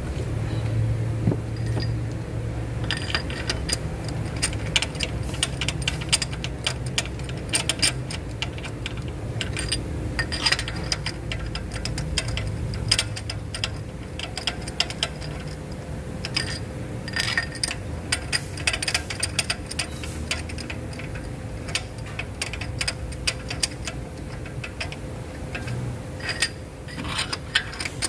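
Irregular metallic clicks and clinks of hand tools working spark plugs into the engine's deep plug wells, over a steady low hum.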